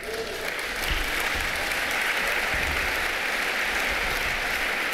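Audience clapping, building up over the first second and then holding steady.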